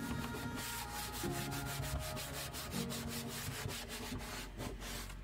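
Sandpaper rubbed by hand back and forth over a wood panel, a run of repeated scratchy strokes: sanding off excess wood filler with 180-grit paper. Background music plays under it.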